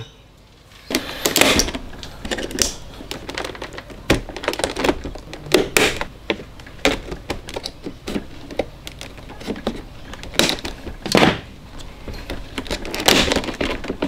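Hard plastic trim of a Mercedes W204 door panel being pried apart by hand, the door-handle trim piece working loose from the panel carrier along its cut plastic tabs: irregular clicks, knocks and cracks, with a few louder cracks about a second in, around the middle and near the end.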